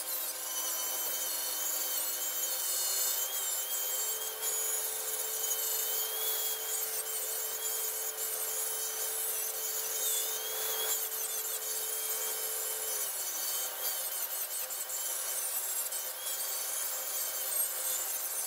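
Electric angle grinder grinding a cast steel anvil, taking off the hard casting skin. A steady hiss of the disc on the steel over the motor's whine, which rises in pitch a few seconds in and drops again near the end.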